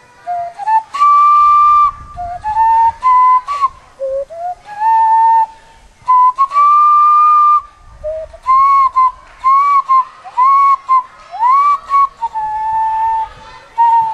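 A melody whistled through cupped hands, with a pure, flute-like tone. It moves through a string of held notes and short phrases, many sliding up into the note, with brief breaks for breath between them.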